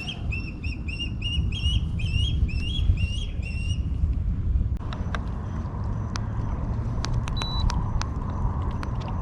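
A bird calling a quick series of chirps, about three a second, stopping about four seconds in, over a steady low rumble. In the second half there is a faint steady high tone with scattered sharp clicks.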